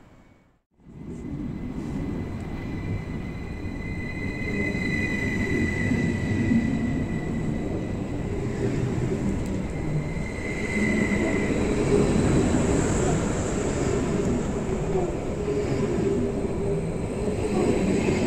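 Train running past at close range: a steady rumble of wheels on rails that builds over the first few seconds, with a thin high whine that comes and goes.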